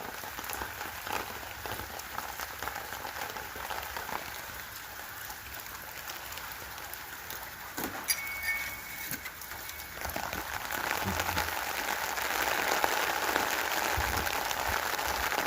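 Steady rain falling, with many scattered drop hits; it grows louder about ten seconds in.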